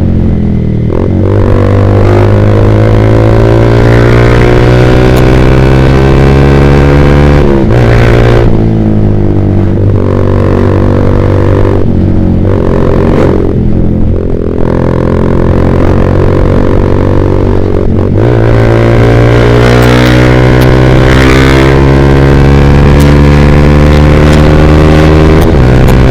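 Yamaha Vixion's single-cylinder four-stroke engine, running through a Proliner TR1 R aftermarket exhaust, pulling under way. The revs climb slowly and fall sharply at each upshift, several times over.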